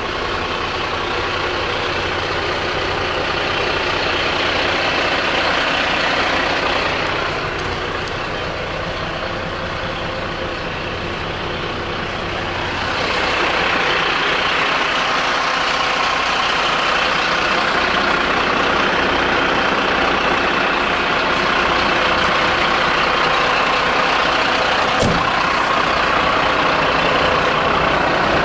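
Mercedes-Benz Atego 1324 truck's six-cylinder diesel engine idling steadily, heard first from inside the cab and then from outside at the front, where it sounds brighter. A single sharp click comes about 25 seconds in.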